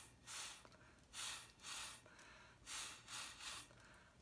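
Short puffs of breath blown through a straw onto wet acrylic pour paint, pushing it out into wispy edges. About six puffs, some in quick pairs.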